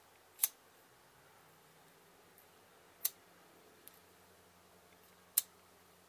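Slip joint pocketknife blade clicking into place against its backspring as it is worked open and shut: three sharp clicks, about a second in, at about three seconds, and near the end, with a faint tick between the last two.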